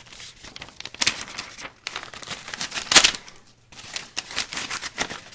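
Paper being handled and stapled with a handheld stapler: a run of rustling and crinkling with several short sharp sounds, the loudest about three seconds in.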